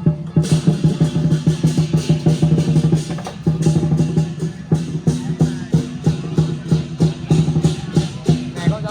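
Lion dance drum and cymbals playing a fast, driving beat, about four to five strokes a second, growing louder about half a second in.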